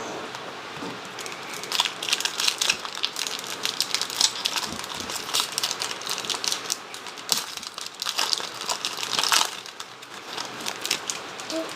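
Crinkling and crackling of a trading-card pack's foil wrapper being handled, in quick irregular bursts through most of the stretch.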